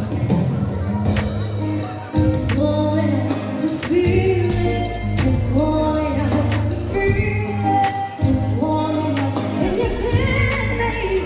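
Music: a song with a singer over a steady beat and heavy bass.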